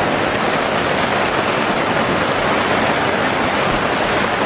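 Heavy rain falling steadily, a dense, even hiss of drops.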